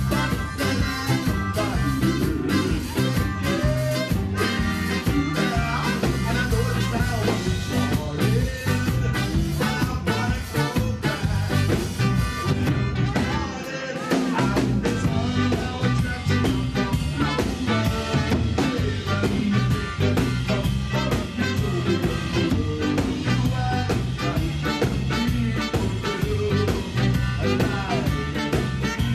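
Live ska band playing: electric guitar, bass and drums with a singing voice over an upbeat rhythm. The bass and drums drop out briefly about halfway through, then come back in.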